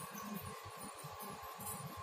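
Quiet background: faint low room noise with a thin, steady high-pitched hum.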